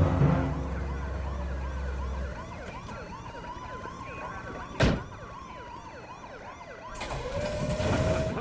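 Several police sirens wailing over one another. A car door slams shut about five seconds in, and near the end a squad's running boots patter quickly.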